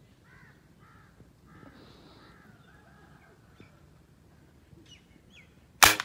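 Faint birds calling from the trees, then near the end a single sharp crack of a scoped air rifle firing, much louder than anything else.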